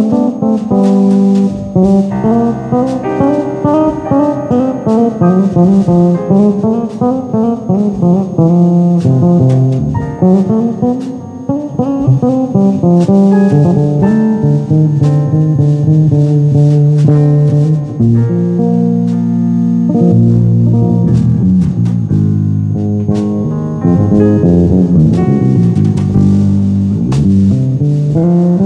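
Guitar music: many quickly plucked notes over a lower bass line.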